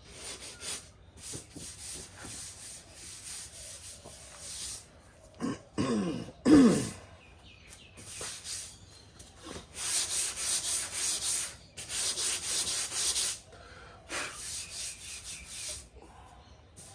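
Sandpaper rubbed by hand over a car body panel in quick back-and-forth strokes that come in runs, with pauses between. About six seconds in comes a short, loud sound that falls in pitch.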